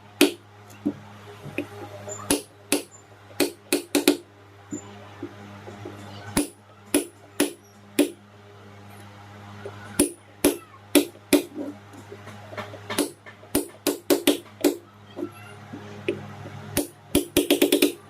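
Hammer striking a steel punch in light, irregular taps, staking the ceiling fan's bearing seat so the bearing fits tight and the fan stops making noise. A quick run of taps comes near the end.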